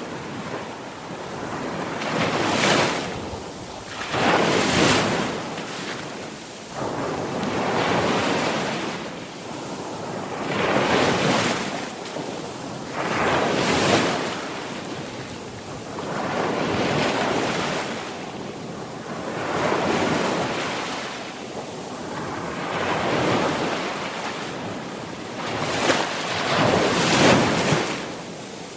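Sea waves breaking on a shore: surf swelling and washing back in repeated surges, one every two to three seconds.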